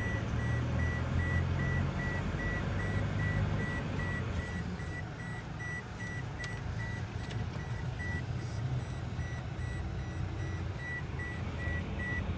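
Inside a moving car: steady low engine and road rumble, with a dashboard warning beeper sounding rapid, evenly spaced high beeps throughout.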